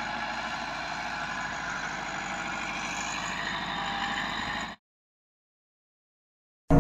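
Massey Ferguson 385 tractor's four-cylinder diesel engine running steadily under load as it pulls a tillage implement across the field. About three-quarters of the way through, it cuts off abruptly into silence.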